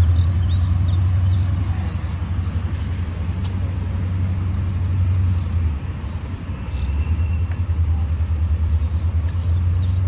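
Outdoor ambience dominated by a steady low rumble that dips briefly about six seconds in, with faint high chirps scattered over it.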